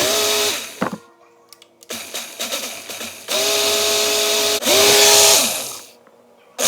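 Ninja personal blender pulsed in three bursts, the motor whining up to speed and winding down each time as it churns frozen fruit with water, with a fourth pulse starting at the end.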